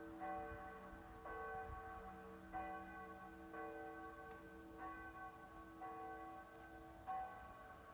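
Church bells ringing the midday peal, struck about once a second. Each stroke rings on with several overlapping tones.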